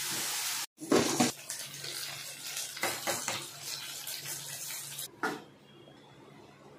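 Batter-coated vegetables deep-frying in hot oil in a kadhai: a steady sizzle with scattered crackles and pops. The sound cuts out briefly twice, and near the end gives way to faint room sound.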